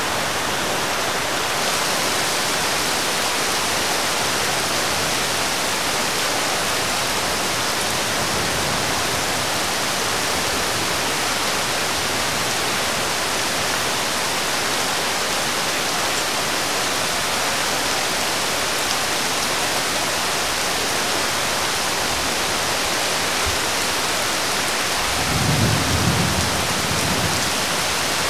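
Heavy downpour: a dense, steady hiss of rain pelting a flooded pavement. A short low rumble rises about three seconds before the end.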